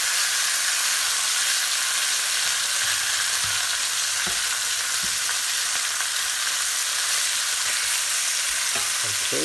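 Floured chicken pieces sizzling steadily in a thin layer of hot oil in a skillet as they brown, with a few faint light ticks in the middle.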